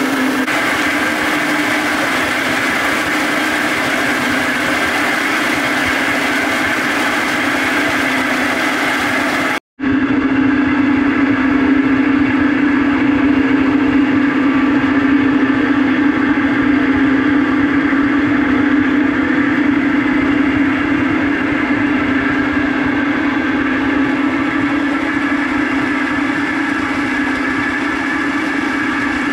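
Homemade drum water wheel turning in a flowing channel, its belt-and-pulley drive and generator running with a steady hum over the rush of water. The sound drops out for an instant about ten seconds in.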